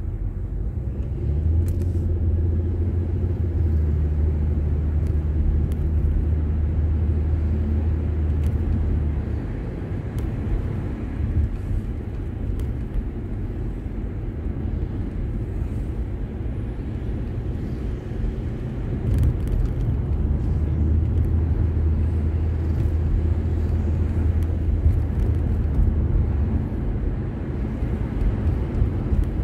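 Car engine and road noise heard from inside the cabin while driving: a steady low drone that eases off about ten seconds in and comes back at about nineteen seconds.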